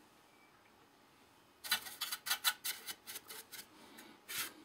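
Short puffs from an aerosol spray duster, blowing dust out of an oscilloscope's chassis. About eight quick hissing bursts, starting a little under two seconds in.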